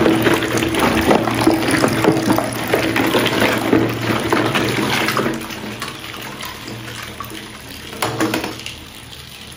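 Water splashing and sloshing in a bucket as a hand stirs through floating plastic balls, with small knocks of the balls against each other. The splashing is busy for about five seconds, then turns quieter, with one more brief splash about eight seconds in.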